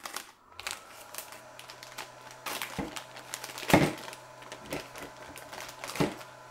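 Plastic anti-static bag crinkling as a circuit board is slid out of it and handled, with several sharp clicks and knocks, the loudest a little past halfway.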